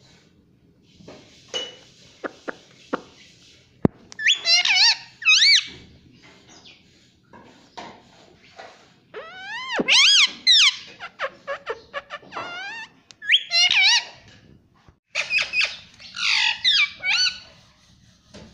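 Ringneck parakeet making high, wavering squawks and chirps in four or five short bouts, with a few sharp clicks in the first few seconds.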